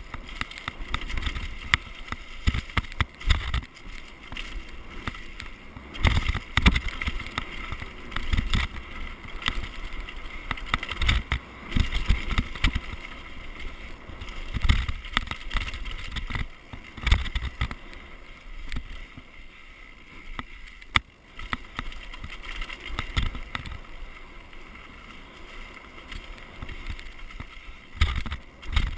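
Downhill mountain bike descending a dirt forest trail at speed: wind buffeting the camera microphone, tyres rumbling over dirt and leaves, and the bike knocking and rattling over bumps all the way down.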